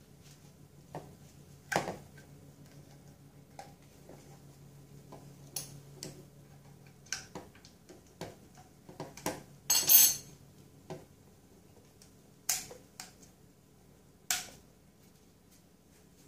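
Hard white plastic P-trap parts being handled, giving scattered clicks and knocks, with a metal spoon clinking and scraping against the plastic pipe; the loudest rattle comes about ten seconds in.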